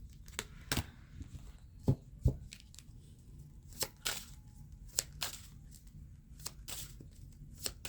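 Tarot cards being handled: a scatter of short, light snaps and clicks as cards are shuffled, drawn and laid down.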